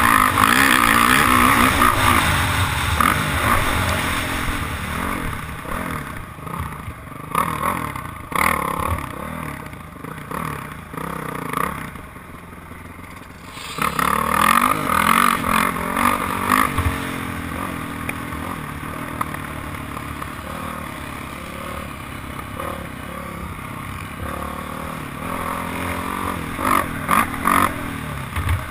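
Dirt bike engine revving up and easing off as it is ridden around a motocross track, heard from the rider's helmet, with a rushing noise and rattles over it. About twelve seconds in the engine goes quieter for a second or two, then comes back loud.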